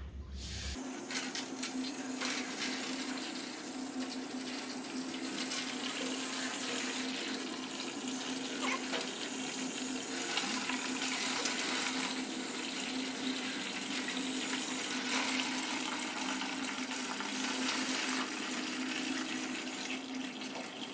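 Garden hose spray nozzle spraying a steady hiss of water, hosing manure out of the droppings gutters under the rabbit cages. The spray starts about a second in.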